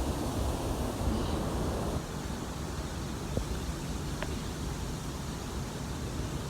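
Steady rush of river water, with wind noise on the phone's microphone; it drops slightly in level about two seconds in.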